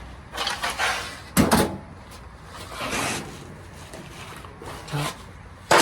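Knocks, scrapes and clatter of dryer panels and parts being handled during disassembly. There are two sharp knocks about a second and a half in and a loud clatter near the end.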